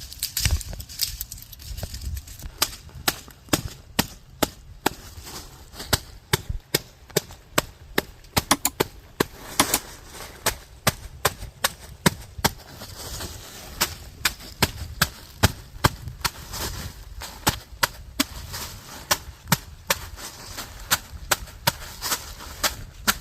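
Pigeon pea pods being picked by hand: a run of sharp, irregular snaps, a few each second, as the pods are broken off the stems.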